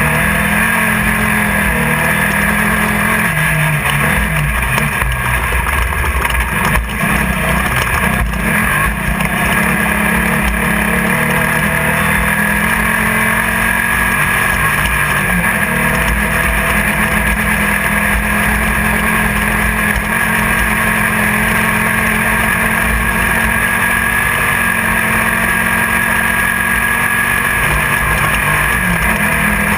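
Engine of a Class 1600 off-road race buggy, an air-cooled Volkswagen flat-four, heard from inside the car as it runs hard at race speed, its pitch shifting up and down. Two sharp knocks come about seven and eight and a half seconds in.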